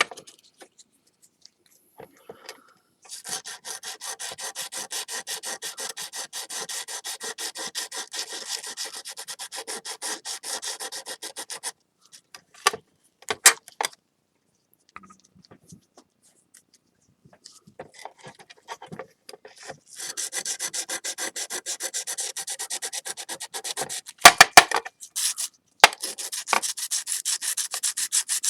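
240-grit sandpaper scrubbing the glazed surface of a mended stoneware plate with quick, even back-and-forth strokes, in two long spells with a pause between them. A few sharp knocks come in the pause and partway through the second spell.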